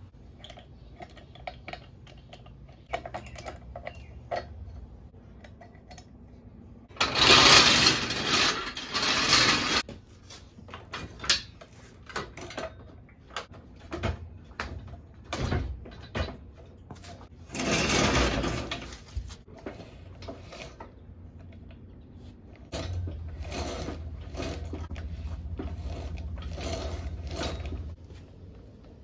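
Clicks and knocks of tools and parts being handled, with two loud rushing bursts of two to three seconds each, and a low steady hum for several seconds near the end.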